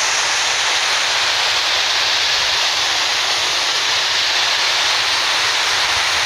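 Muddy floodwater pouring over the edge of a mining pit and falling into it as a waterfall: a loud, steady rush of water as the pit floods.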